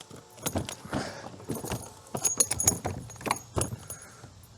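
Irregular metallic rattling and knocking clatter as a big hooked fish is landed and handled in a boat, loudest about two to three seconds in.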